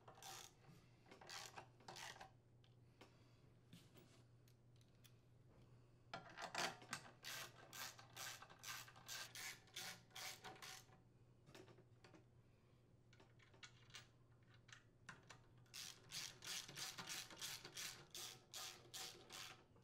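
Faint clicking of a ratchet with a 10 mm socket turning the crankcase cover's mounting screws down into a small engine. The clicks come in two quick runs, about six to eleven seconds in and again from about sixteen seconds in, with a few scattered taps between.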